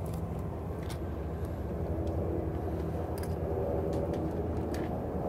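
Steady low rumble of city traffic, with a few light clicks.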